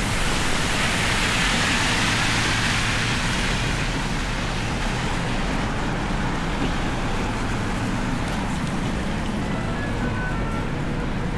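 Steady city street traffic noise on wet roads, with the hiss of a passing vehicle's tyres swelling during the first few seconds and then fading.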